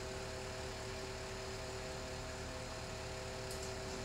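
Crane's engine running steadily while it holds a suspended load: a constant hum with a few fixed tones over a hiss.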